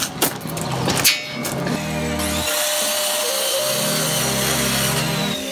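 Corded circular saw cutting through a plywood board, with background music coming in under it about two seconds in. A few sharp knocks come before.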